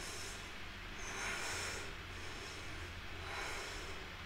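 A woman breathing slowly and audibly, with a couple of long breaths over a steady low hum.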